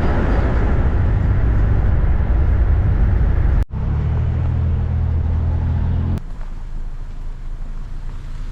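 Car driving on the road: a steady engine and road rumble, cut abruptly about three and a half seconds in and again about six seconds in, quieter after the second cut.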